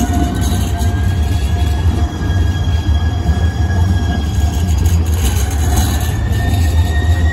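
Valley Metro light rail train passing close by: a steady deep rumble with a thin high whine that slowly rises in pitch.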